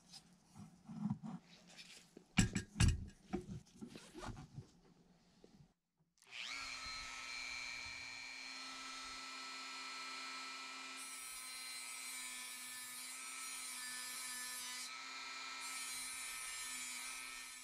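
Clicks and knocks of small metal parts being handled, then a Dremel 4300 rotary tool with a cutting disc spinning up about six seconds in and running at a steady whine. A harsher hiss joins it in two stretches as the disc cuts into the die-cast metal body.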